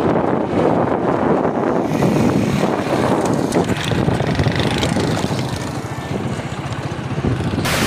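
Motorcycle engine running while riding, with wind rushing over the microphone. The sound is loud and steady, easing a little in the second half.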